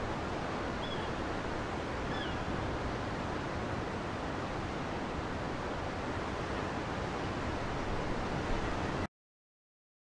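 Steady wash of sea surf on a rocky shore, with a few faint, short, high bird chirps about one and two seconds in. The sound cuts off suddenly about nine seconds in.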